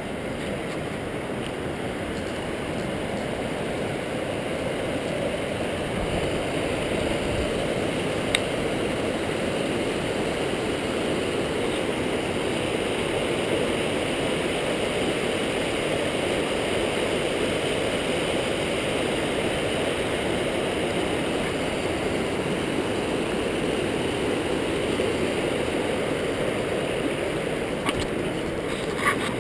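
Rushing water of a rocky mountain river tumbling over boulders in shallow rapids, a steady unbroken rush that grows slightly louder over the first few seconds. A single faint click about eight seconds in.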